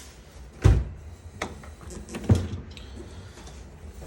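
Asko 1605 dishwasher being handled: a heavy thump about two thirds of a second in, a sharp click near one and a half seconds, and another thump just past two seconds.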